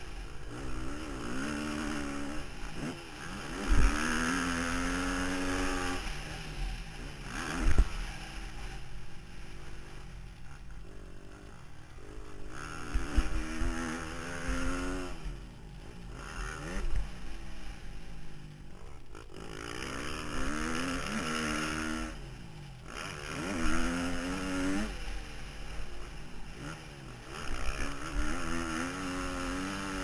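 Husqvarna TC 250 four-stroke single-cylinder motocross engine heard from onboard, revving up and dropping back again and again as the rider accelerates, shifts and rolls off through the track, over a steady rush of wind. Two sharp knocks stand out, about four and eight seconds in.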